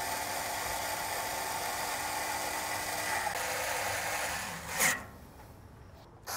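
Cordless electric screwdriver whirring steadily as it drives a screw into the grill's sheet-metal side frame, stopping with a short louder burst about five seconds in.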